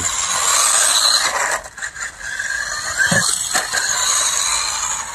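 Small electric RC truck's motor and drivetrain whining as it runs at speed over asphalt, a high squealing whine. It drops away for about half a second around two seconds in, then picks up again.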